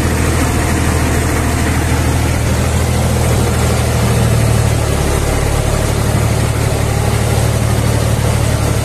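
Tractor engine running steadily under load while pulling a single-furrow plough through hard, never-ploughed meadow sod.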